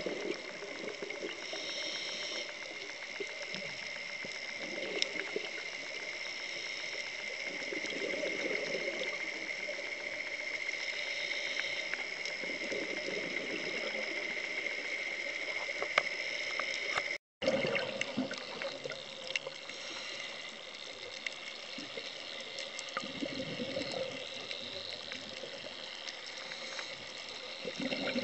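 Underwater recording of scuba diving: muffled water noise with bursts of bubbling that swell and fade every few seconds, typical of a diver's exhaled regulator bubbles, over a steady high-pitched whine. The sound cuts out for a split second about two-thirds of the way through.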